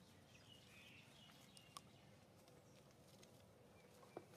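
Near silence: faint outdoor ambience, with a faint twitter about half a second in and a soft click about two seconds in and again near the end.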